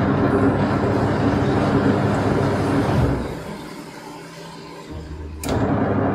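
Samsung top-loading washing machine running its pulsator in the empty tub. The motor hums for about three seconds and stops, then starts again with a click about five and a half seconds in: the stop-and-go of an agitation cycle.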